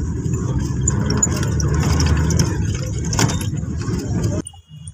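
Cabin noise inside a moving bus: a steady engine and road rumble with light rattles and clicks. It cuts off suddenly near the end.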